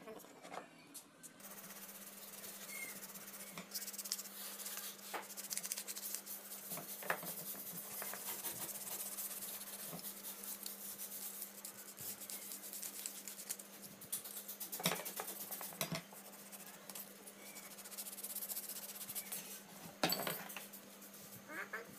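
Flat metal file rasping in repeated strokes against a wooden handle, with a few louder knocks of tools on the wooden workbench. A steady low hum sits underneath from about a second and a half in.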